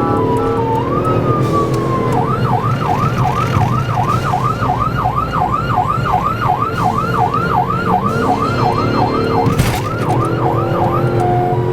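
Police car siren cycling through its tones: a slow wail for the first two seconds, then a fast yelp at about three cycles a second, switching to an alternating two-tone near the end. Underneath is a steady low rumble of engine and road noise.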